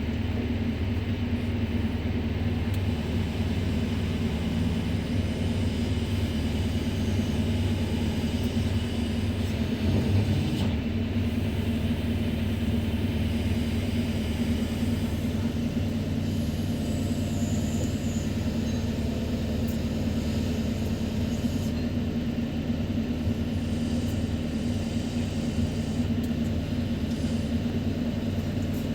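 Kobelco SK200-10 excavator's diesel engine running steadily, heard from inside the closed operator's cab as a constant low drone with a slight swell about ten seconds in.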